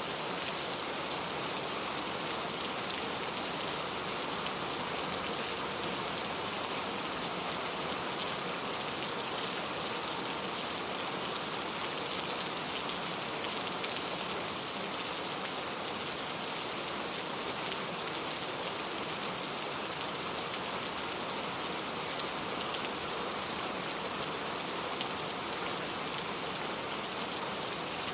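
Steady rainfall, an even hiss of drops with fine patter on surfaces, unchanging throughout.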